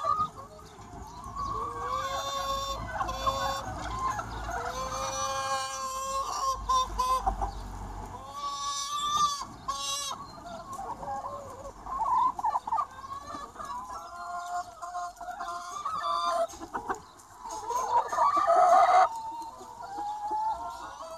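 Chickens clucking and calling throughout, with a rooster crowing.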